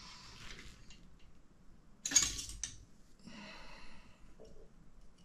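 Faint handling of small plastic steering parts and a metal hex driver on a rubber work mat. There is a loud exhale about two seconds in and a softer breathy sound about a second later.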